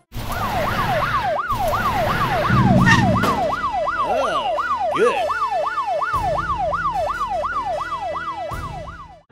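Electronic siren of a toy police motorcycle, wailing up and down rapidly, about three sweeps a second.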